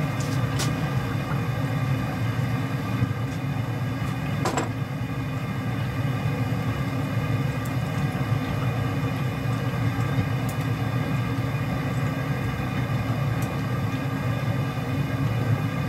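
Steady low rumble with faint steady tones, unchanged throughout, with a light click about four and a half seconds in.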